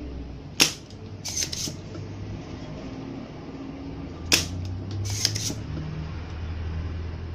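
Spring-loaded desoldering pump (solder sucker) firing twice, about four seconds apart, each a sharp snap. Each snap is followed by a short scratchy rattle from the pump being handled.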